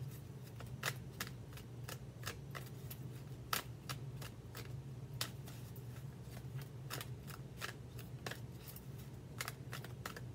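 A deck of tarot cards being shuffled by hand: a steady run of quick, irregular card clicks and snaps, over a low steady hum.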